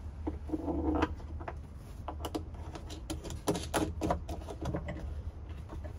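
Irregular light knocks and clicks of wooden bed-kit boxes being handled and joined, with hand-turned plastic knob screws being fitted.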